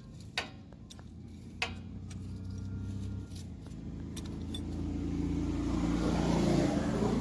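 A few sharp metallic clicks of a wrench working a nut, then a vehicle engine running, growing steadily louder over the last several seconds.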